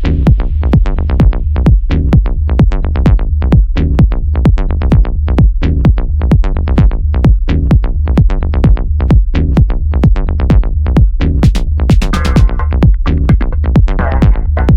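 Background electronic dance music with a steady driving beat and heavy bass.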